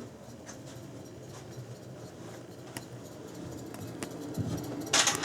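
Air-conditioning fan coil unit running with a low hum and irregular faint ticking and rattling: the abnormal noise the unit makes when switched on, fairly quiet this time. A low thump comes near the end, followed by a brief louder rustle.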